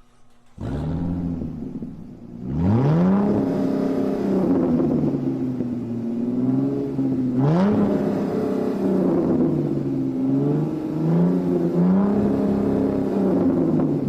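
Supercar engine starting up about half a second in, then being revved several times, the pitch sweeping up sharply at about two and a half seconds and again in a quick blip near the middle before settling and rising again.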